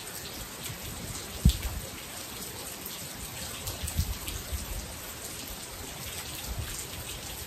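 Steady rain falling, an even hiss, with one dull thump about one and a half seconds in and a few softer low knocks around four seconds in.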